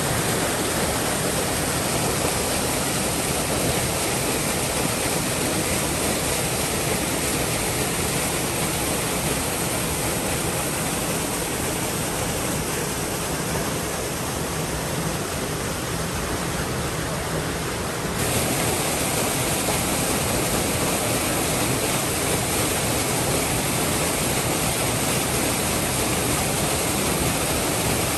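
Steady rushing of a waterfall and its creek. About two-thirds of the way through, the sound shifts abruptly and becomes a little louder and brighter.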